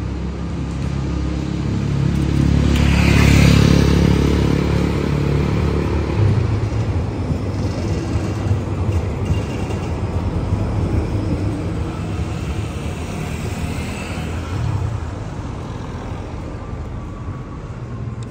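City tram running past on its street tracks: a low rumble that swells a few seconds in and then slowly fades.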